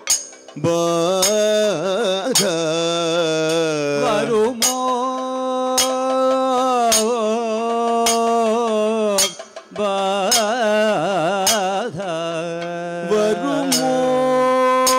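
Kathakali padam sung by two singers in a slow, ornamented Kerala classical style, one voice overlapping the other for the first few seconds, with brief breaths near the start and about halfway through. Regular sharp metallic strikes from the singers' hand gong (chengila) and cymbals (ilathalam) keep the time.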